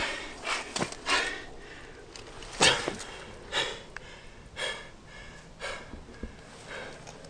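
A man's heavy, ragged breathing: a string of loud gasping breaths about once a second, coming further apart toward the end.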